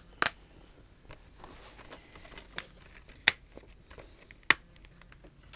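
Sharp clicks and clacks of a plastic multi-disc DVD case and its discs being handled: a quick double click near the start, then single clicks about three and four and a half seconds in, with faint rustling between.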